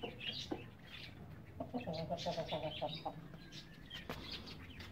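Hens clucking, a run of short calls about two seconds in, with higher chirping calls among them.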